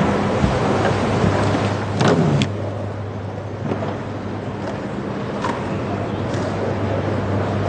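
Tennis court ambience: a steady low hum under an even background noise, with a brief louder sound about two seconds in.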